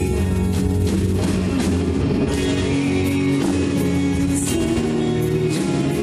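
Rock band playing live with an orchestral string section: electric guitar and sustained low notes over a drum kit, with repeated cymbal hits.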